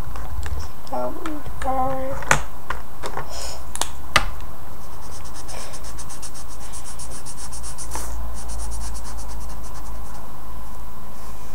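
Felt-tip pen colouring on paper: rapid, even back-and-forth scratching strokes for several seconds in the middle. A couple of sharp clicks come before it.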